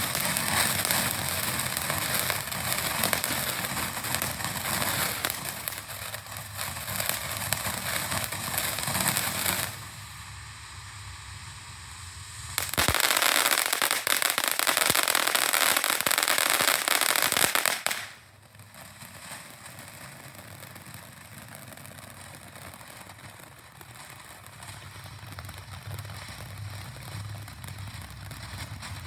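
Ground fireworks fountain spraying sparks with dense crackling. It eases briefly about a third of the way in, comes back louder for about five seconds, then falls to a quieter steady hiss.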